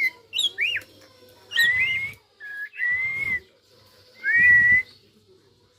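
White-rumped shama (murai batu) giving a short run of clear whistled notes, the first sweeping down in pitch and the rest held level, with short pauses between them; the last note is the loudest.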